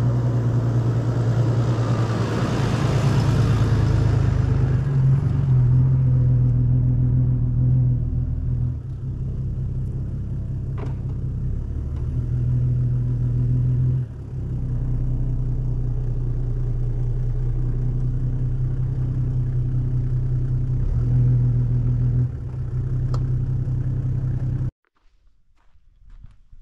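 Camper van's engine running steadily with a low hum that shifts in level a few times, then stops abruptly near the end. A rushing noise rides over it for the first few seconds.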